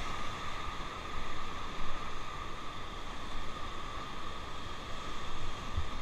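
Whitewater of a Ganges rapid churning around an inflatable raft: a steady rushing hiss of water with no breaks or distinct splashes.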